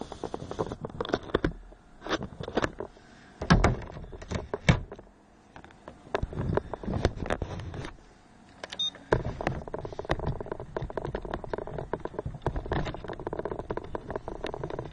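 Radio-controlled car's motor and drivetrain heard from on board, with many sharp knocks and rattles as it runs over paving slabs. It goes quieter twice, then from about nine seconds in keeps up a dense, steady rattle.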